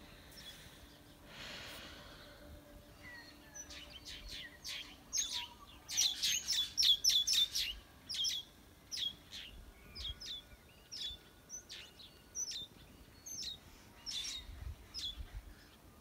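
Small birds chirping in quick, sharp, high notes, thickest a few seconds in and thinning out later. A short rush of noise comes about a second in.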